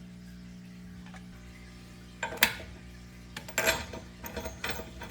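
Metal rack parts and hardware clinking and knocking: a bolt and washers being fitted through the steel frame of a hitch-mount bike rack during assembly. The sharp clicks come one by one, starting a little over two seconds in, over a faint steady hum.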